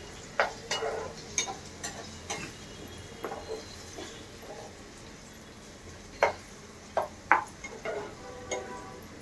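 A steel spoon stirring and scraping frying onion paste in a nonstick pan, clinking against the pan now and then at uneven intervals, over a faint sizzle.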